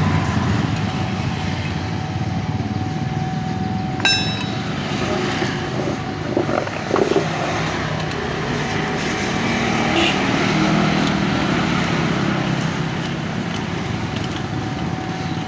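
Steady rumble of motor vehicles running. About four seconds in there is one sharp clink with a short ring, from the metal pipe being worked inside the motorcycle's exhaust.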